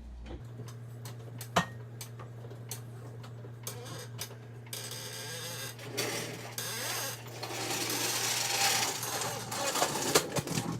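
A floor jack being set under the front of the car and worked, metal rubbing and rasping, with a sharp knock about a second and a half in and louder scraping in the second half.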